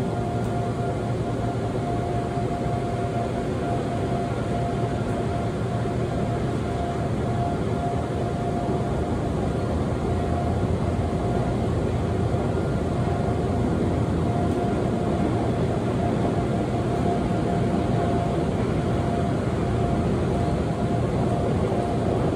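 Seoul Metro subway train running at speed, heard from inside the car: a steady rumble of wheels on rail with a constant whine held throughout, growing a little louder in the second half.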